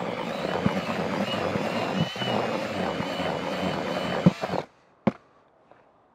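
Cordless drill with a mixing paddle churning dry fishing groundbait in a plastic bucket, running steadily with a motor whine over a gritty rustle, then stopping abruptly a little over four seconds in. A single sharp click follows about a second later.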